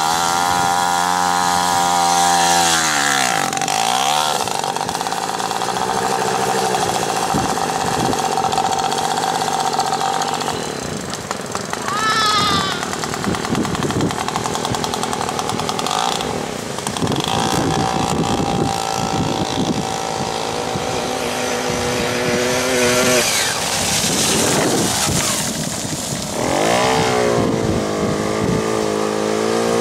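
Small two-stroke 50 cc Puch engines, on a Puch Maxi moped and on a mini quad, revving up and down as they ride in mud. The revs rise and fall repeatedly and are held high for several seconds at a time.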